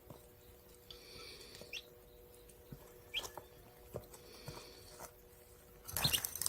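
A small animal giving a few brief high squeaks, among light clicks and scratchy rustling, with a louder scrabbling noise near the end.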